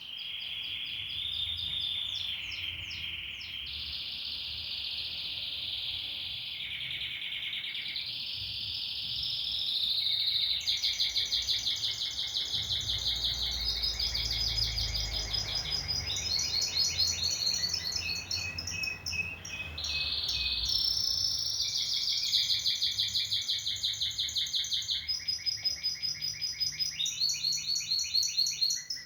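Domestic canary singing a long continuous song of held whistled notes and rapid rolling trills, switching between phrases every few seconds.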